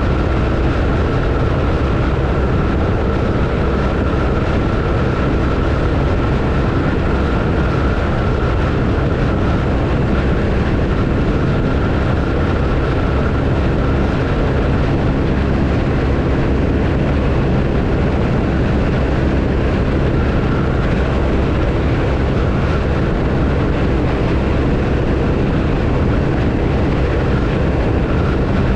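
BMW R1250RT's boxer-twin engine running steadily under way, with a steady rush of wind and road noise over it.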